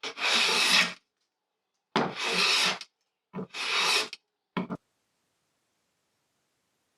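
Hand plane shaving along the edges of two curly maple boards planed together, jointing them for a glue-up. Three strokes of under a second each, then a brief fourth.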